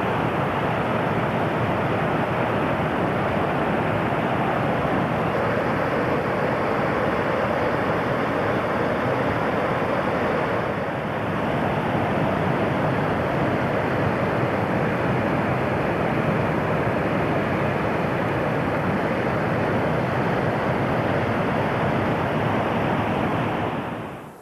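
Steady loud rushing of running water, which dies away near the end.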